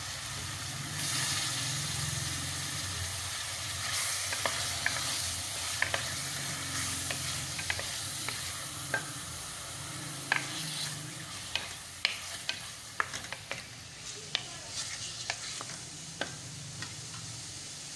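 Raw chicken pieces sizzling as they fry in hot oil in a metal pan, stirred with a wooden spoon that knocks and scrapes against the pan in scattered sharp clicks, which come more often in the second half.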